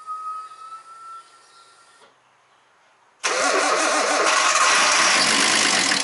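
A high whine rising slightly in pitch, the electric fuel pump priming with the key on, stops about two seconds in. About a second later the starter cranks the Nissan RB25DET turbocharged straight-six loudly for about three seconds, a start attempt to check whether the engine still misfires on its new coil pack loom.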